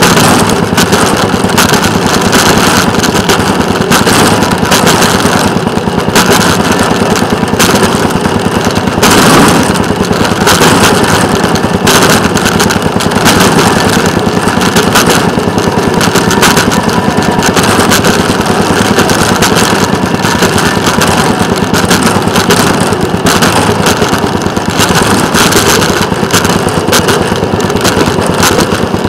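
Small engine of a rail motorcar (speeder) running steadily with a fast rattle as it travels along the track.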